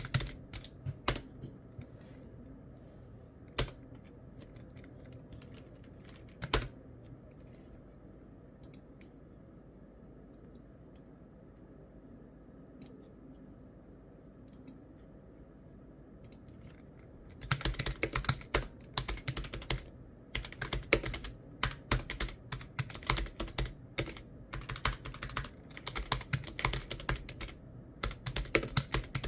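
Typing on a computer keyboard: a few separate keystrokes, then a long lull with only faint occasional taps, then rapid continuous typing picks up about two-thirds of the way through and runs on in quick flurries with short pauses.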